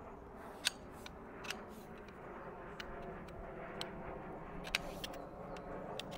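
Shock-corded metal cot poles clicking and clinking as their sections are handled and slotted together: a scattering of sharp clicks, about one a second, over a faint steady rumble.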